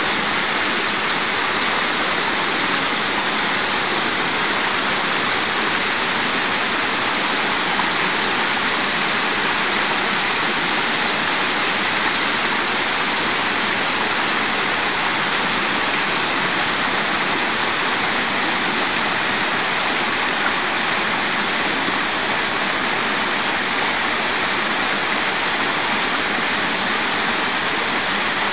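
Small waterfall cascading over rock slabs into a shallow pool: a steady, unbroken rush of water.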